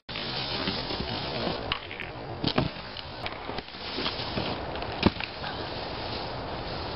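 Snowboard sliding and scraping over packed snow, a steady hiss broken by several sharp knocks, the loudest about five seconds in.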